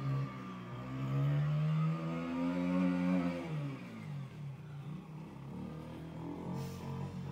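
Small youth ATV engine revving as it circles in mud, held at high revs for a few seconds, then dropping off about halfway through and running lower and unevenly.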